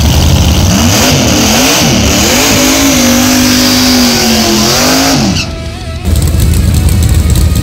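Fox-body Mustang drag car's engine revving up in a burnout, the revs rising and dipping before being held high while the rear tires spin and squeal. The revs fall away sharply about five seconds in as the driver lets off.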